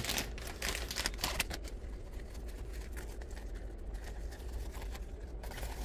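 Small accessory parts and their packaging being handled: irregular light clicks and rustles, busiest in the first second and a half and sparser after.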